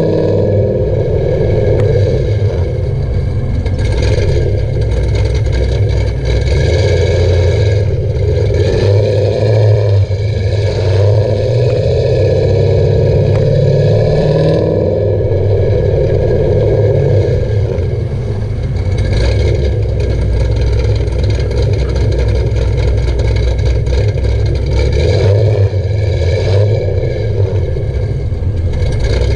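Exhaust of a cammed Chevrolet Camaro SS V8 through an MBRP exhaust, heard close to the tailpipes while driving. The engine note swells and eases a few times with the throttle.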